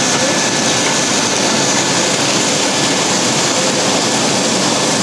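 Automatic rollover car wash running: its rotating brushes scrubbing a car under water spray, a steady rushing noise with a faint constant whine.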